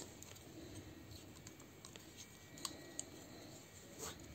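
A few faint clicks and light rattles of small plastic toy parts being handled and slotted together while transforming a Zeta Toys Mini Superitron combiner figure, with a sharper click at the start.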